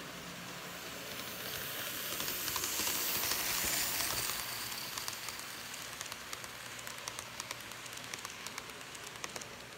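Kato N scale ALCO PA-1 model locomotive and its streamlined passenger cars running past on the track. A hiss swells to its loudest about three to four seconds in and then eases off. After that comes fast, irregular clicking of the cars' wheels on the rails as the train goes by.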